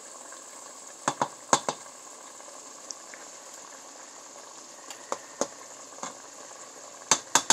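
Chicken strips and vegetables sizzling steadily in a pot of simmering liquid. A few sharp taps cut through it: a pair about a second in, three more between five and six seconds, and a quick run of them near the end.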